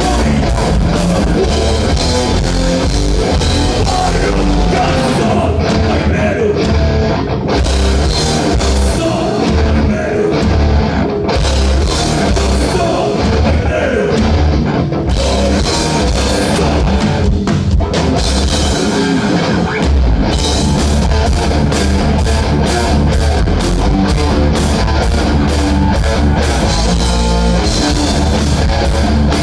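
Heavy metal band playing live over a PA: distorted electric guitars, bass and drum kit, loud throughout. About two-thirds of the way in, the drums switch to a fast, even beat.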